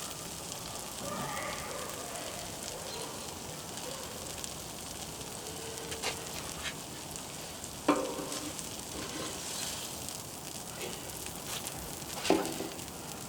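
Cheese and bread sizzling steadily on a Blackstone flat-top griddle, broken by a few sharp knocks, the loudest about 8 and 12 seconds in.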